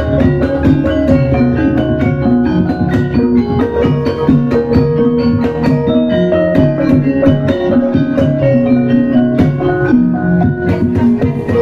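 Javanese gamelan ensemble playing a Banyumasan gending: bronze bonang gong-kettles and metallophones struck with mallets in quick successions of ringing notes, over steady kendang drum strokes.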